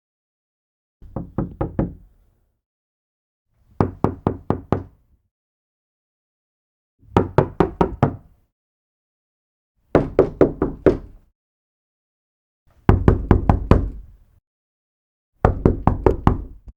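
Knuckles knocking on a door in six bursts of about five quick raps each, one burst roughly every three seconds, the first burst quieter than the rest.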